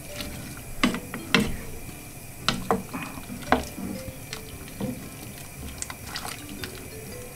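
Wooden spoon stirring sliced onions and sweet peppers in a pot of liquid: the liquid sloshes, with about ten irregular knocks of the spoon against the pot.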